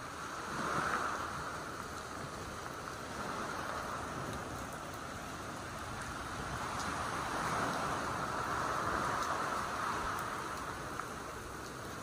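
Sea waves washing up a pebble beach in steady rain, a continuous hiss that swells twice: briefly about a second in, and for longer from about seven to ten seconds in.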